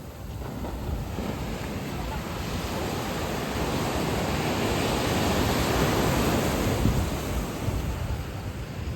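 Sea surf: a wave surging up the beach and washing over the sand, building steadily to its loudest about two-thirds of the way through, then easing off.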